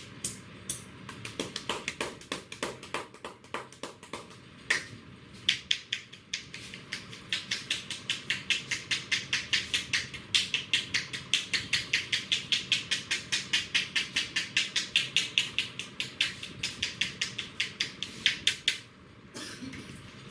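Barber's hands tapping rapidly on a person's head in an Indian head massage: a fast, even run of sharp slaps, about five a second, with a short break near the end.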